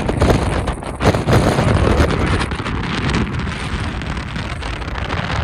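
Strong gusting wind blasting the microphone, a loud rumbling buffet that eases slightly toward the end.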